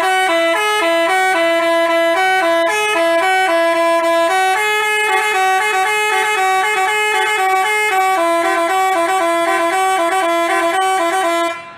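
Basuri 'telolet' multi-tone bus horn playing a quick tune of short, clear notes, then cutting off abruptly near the end.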